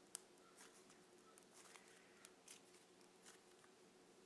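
Faint squishing of slime kneaded between the hands, heard as irregular small clicks and pops, about six or seven of them, over a low steady hum.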